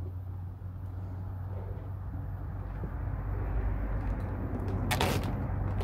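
Steady low outdoor rumble that swells slightly toward the end, with one short, sharp noise about five seconds in.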